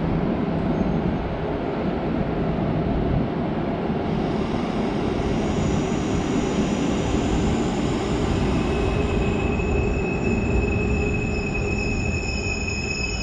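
Double-deck regional passenger train pulling into the platform with a steady rumble. About nine seconds in, a high steady squeal starts as it brakes to a stop.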